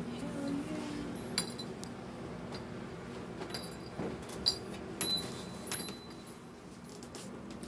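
A handful of light clicks and clinks over faint room noise, the sharpest about four and a half and five seconds in.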